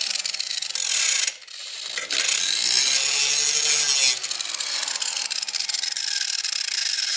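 Angle grinder grinding down the steel handle support on a walk-behind mower deck, working in passes with a short break about a second and a half in. The motor's pitch sags and recovers as the disc is pressed onto the metal.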